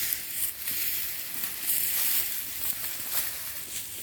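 Wood-chip mulch and sweet potato vines rustling and crunching as the bed is dug through, a steady hiss with scattered short crackles.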